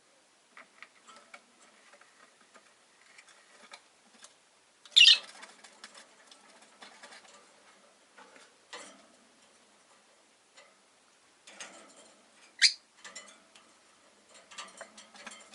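Rosy-faced lovebirds in their cage: soft clicking and scratching throughout, broken by two loud, sharp chirps, one about five seconds in and one near the end.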